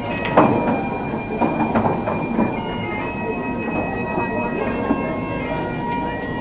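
Pool balls clacking: one sharp click about half a second in as the rolling cue ball strikes an object ball, then a few softer knocks over the next two seconds. Background music of sustained, droning tones plays throughout.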